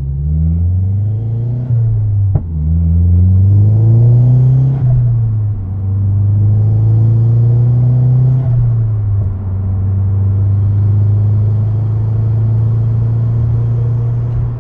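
Gen 2 Mazdaspeed3's turbocharged 2.3-litre four-cylinder, heard from inside the cabin through a COBB stainless steel 3-inch cat-back exhaust, accelerating from a standstill. The engine note climbs and drops back at three upshifts, about 2, 5 and 8.5 seconds in, then settles into a steady drone.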